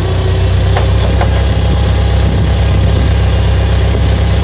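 International 140 tractor's four-cylinder gasoline engine running steadily, with a low, even note.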